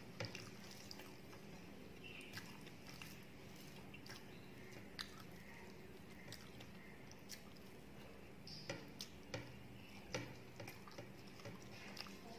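Chewing and fingers mixing rice with curry on a plate: faint, scattered wet clicks and squishes, bunched a little more near the end, over a low steady hum.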